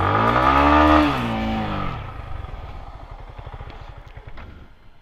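Yamaha MT-15's single-cylinder engine revved up and back down over about two seconds, loudest about a second in, then settling to a quieter steady idle.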